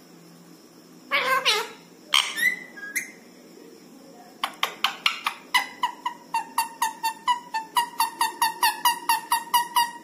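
Indian ringneck parakeet calling: two loud drawn-out calls, then from about halfway a fast, even run of short repeated calls, about three or four a second, each dropping in pitch.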